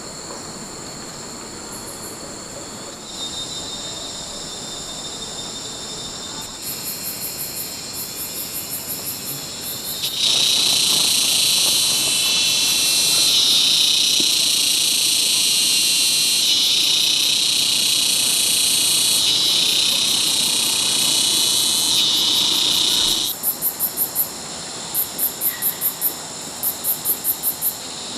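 Insects calling in overlapping high, steady trills. A loud continuous buzzing chorus swells in about ten seconds in and cuts off sharply about twenty-three seconds in. It gives way to short bursts of rapid pulsed chirps repeating every second or two.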